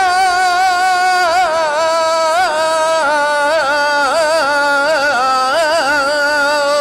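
A male flamenco cantaor sings a cante minero, a mining song, holding long melismatic vowels and ornamenting them with quick trills and turns. The voice is the only thing heard, with no guitar.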